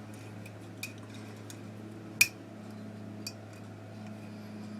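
Small steel rifle trigger-group parts and a screw clicking against each other as they are handled, with one sharp metallic click about two seconds in and a few lighter ticks. A steady low hum runs underneath.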